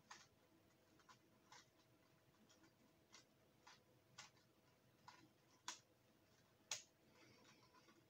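Faint clicks and clacks of a 3x3 Rubik's cube being turned one-handed, its layers snapping round at an irregular pace of about one or two turns a second. The two loudest clacks come near the end, followed by a softer rustle of turning.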